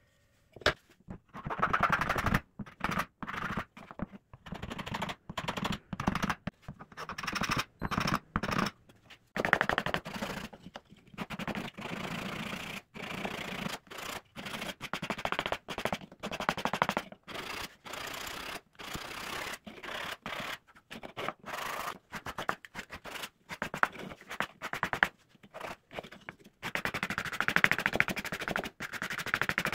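Sandpaper rubbed by hand over a plywood part: rapid back-and-forth rasping strokes in irregular runs, broken by short gaps.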